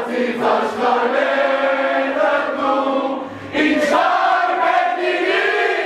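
A crowd singing an Armenian patriotic song together in unison, with long held notes and a short break about three and a half seconds in.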